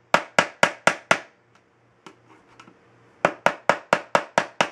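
A mallet striking the handle of a screwdriver held against a sealed metal ammunition tin, driving it in to widen a punched hole. There is a run of five sharp strikes at about four a second, then after a pause of about two seconds a second run of about seven.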